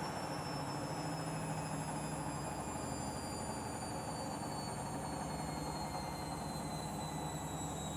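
Candy washing machine spinning its drum, the motor's high whine falling slowly and steadily in pitch over a low hum as the spin slows down.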